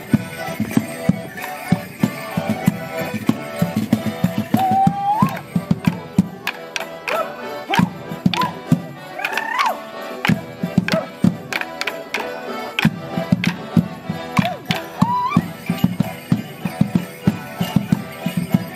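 Live Border Morris dance music played on melodeons, with the dancers' wooden sticks clacking sharply in rhythm. A few short rising whoops cut through, about five seconds in, near the middle and again later.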